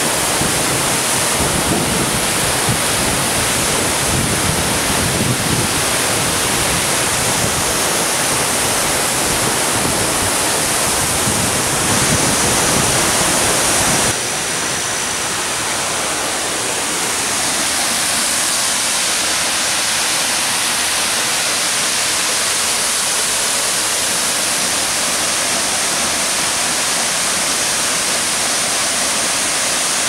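Steady heavy rush of a tall waterfall crashing onto boulders: an even roar of falling water. About halfway through it changes abruptly to a lighter, thinner rush with much less low rumble.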